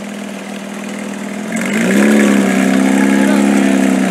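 Porsche 911 GT3 RS's naturally aspirated flat-six running at low revs. About halfway through the revs rise, and the engine holds at the higher, louder pitch.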